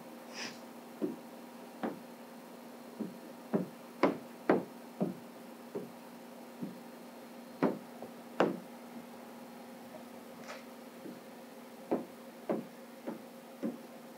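Squeegee working wet paint protection film on a car hood: a string of short knocks and taps at uneven intervals, about twenty of them, the strongest around four and eight seconds in, over a faint steady hum.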